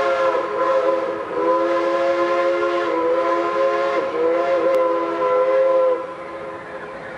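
Steam locomotive chime whistle of Nickel Plate Road 765, a Berkshire, blowing one long chord whose pitch wavers and dips briefly a few times before it cuts off about six seconds in.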